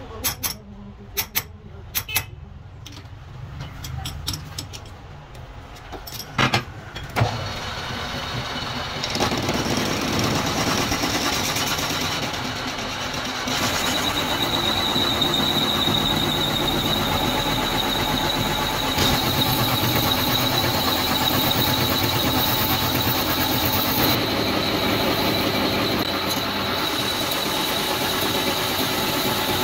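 Metal lathe chuck being tightened with its key: a few sharp metallic clicks and knocks. Then the lathe starts about seven seconds in and runs steadily. From about halfway, a steady high whine joins as the cutting tool turns the steel gear blank.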